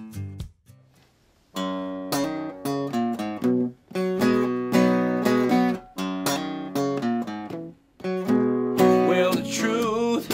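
Steel-string acoustic guitar strummed in a rhythmic pattern that stops dead a few times, with a long pause near the start. A man's voice comes in singing near the end.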